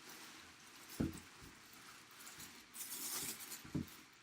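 Handling noise: a soft thump about a second in and another near the end, with a stretch of rustling between.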